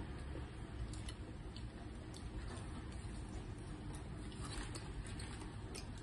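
Faint handling of a plastic-lined paper food wrapping while eating by hand: scattered soft crinkles and small clicks, busier near the end, over a low steady hum.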